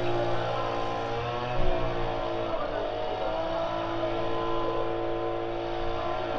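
Small petrol engine of garden machinery running steadily, its pitch wavering slightly up and down. There is a brief thump about one and a half seconds in.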